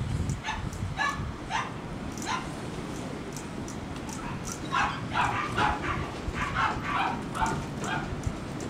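Dog yipping and whining in short high-pitched calls: a few scattered at first, then a quick run of them from about halfway through.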